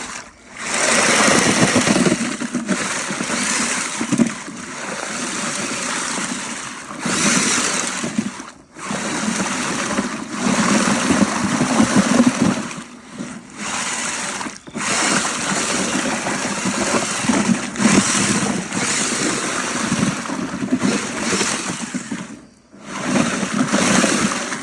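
Power drill spinning a paddle mixer through a thick cement-and-water mix in a plastic bucket. It runs in long stretches and stops briefly several times.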